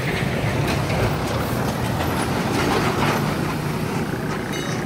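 Loaded Tata truck's diesel engine and tyres passing close by on a road, getting louder as it goes past about two to three seconds in.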